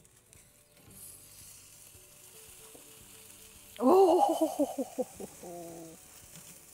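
Chicken sizzling faintly over hot charcoal on a kamado grill's grate as metal tongs lift and move it. About four seconds in comes a loud, wavering pitched sound lasting about a second, then a shorter steady tone.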